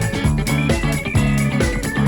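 Background music: a band track with guitar and bass over a steady beat.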